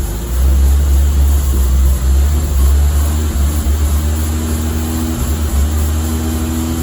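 BMW 325e's 2.7-litre straight-six engine running after being brought back to life from seven years of sitting, a steady low drone with a faint higher hum joining about three seconds in.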